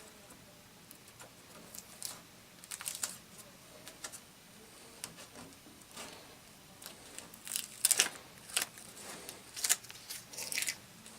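Thin plastic sheets being handled and pulled apart: irregular crinkling and rustling, with several louder crackles in the second half.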